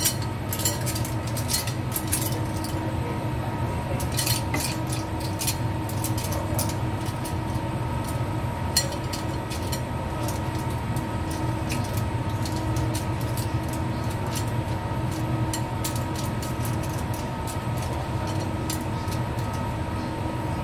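Water boiling in a wok makes a steady low rumble, with a steady hum from the induction cooktop. Over it, clam shells and chopsticks clink against a ceramic bowl as the cooked clams are tipped in and arranged, with scattered clicks that are busiest in the first few seconds.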